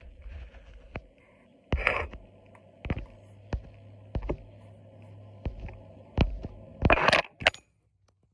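About nine irregular heavy thumps over a steady hum, the loudest about two seconds in and in a cluster near the end. A low steady tone joins the hum about two seconds in and stops with it just before the end.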